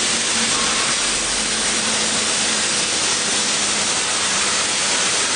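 Steady loud hiss like static, with a faint steady hum underneath.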